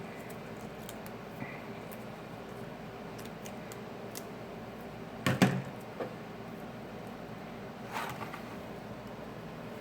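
Small repair tools and phone parts being handled on a bench: faint light ticks, a louder short clatter about five seconds in and a smaller one near eight seconds, over a steady background hum.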